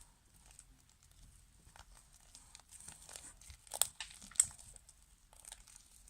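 Homemade slime being squeezed and pulled apart by hand: soft, irregular sticky crackles and small pops, with two sharper snaps around the middle.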